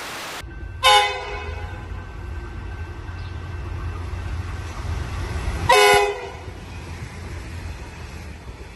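Brief burst of static, then a passing train rumbling while its horn sounds two short blasts, the first about a second in and the second about five seconds later. The rumble fades away near the end.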